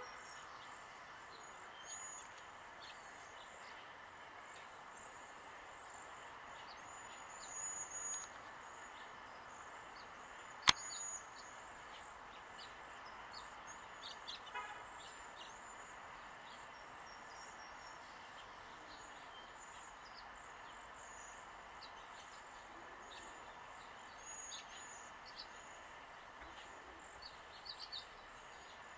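Faint outdoor ambience with small birds chirping in the distance at scattered moments. A single sharp click about eleven seconds in is the loudest sound, and a short rapid run of ticks follows a few seconds later.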